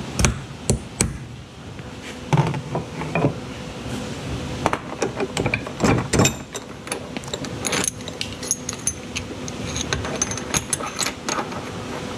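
Hammer striking a metal bird-caging tool to spread the strands of a clutch cable's inner wire into a birdcage for its soldered end fitting: irregular sharp metal-on-metal knocks, with lighter clicks and rattles of handling the tool in between and toward the end.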